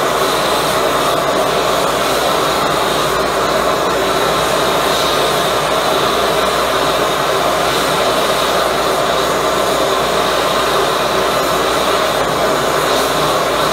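High-velocity propane burner with compressed-air assist running, a steady, even rushing of air and flame that holds constant throughout.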